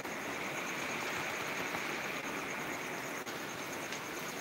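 Heavy rain pouring steadily, a dense even hiss of drops on leaves and wet pavement.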